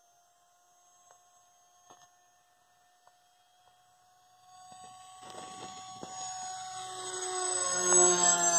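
Beta 1400 RC model airplane's motor and propeller whining as the plane flies past. Faint at first, it grows steadily louder about halfway through, peaks near the end and then drops slightly in pitch as it passes overhead.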